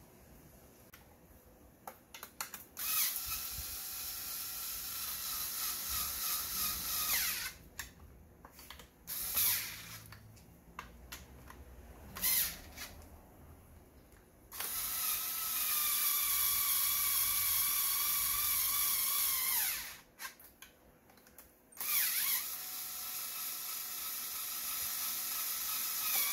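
Cordless power driver running the long intake manifold bolts in: three long runs of a steady motor whine, each sagging in pitch as the tool stops, with two short bursts in between.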